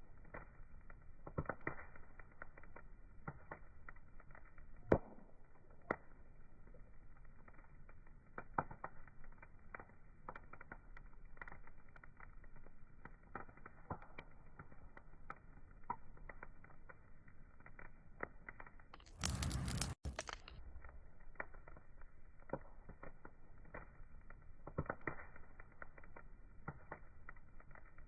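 Wood fire crackling, with irregular pops and snaps over a low hiss. About two thirds of the way through, a louder hissing burst lasts about a second and a half and cuts off abruptly.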